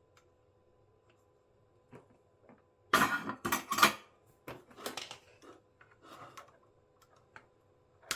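Small hard objects and tools handled on a workbench: a burst of clattering clicks about three seconds in, then a few shorter rattles and single clicks.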